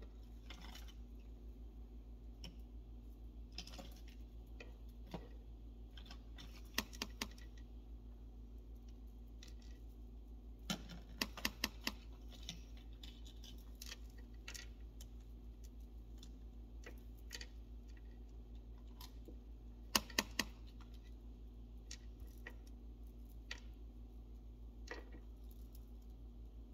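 Scattered light clicks and taps of an eyeshadow palette and makeup brush being handled, with small clusters of quick taps about 11 and 20 seconds in, over a steady low hum.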